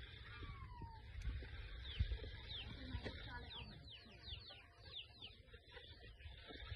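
Small birds chirping in short, quick downward-slurred notes, several a second at their busiest, over a steady low rumble.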